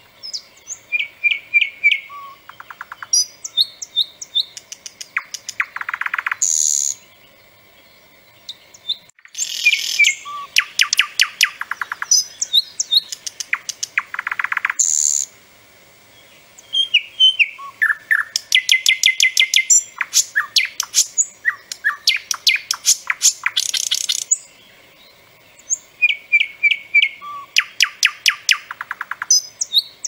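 Nightingale singing loudly in phrases a few seconds long, separated by brief pauses. The phrases mix short whistled notes with fast runs of sharp, rattling clicks and a few harsh high notes.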